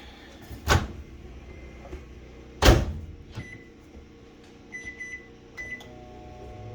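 Microwave oven being started: two sharp knocks, the second the loudest, as the door is handled, then short keypad beeps, one and then a quick triple, after which the microwave starts running with a steady hum near the end.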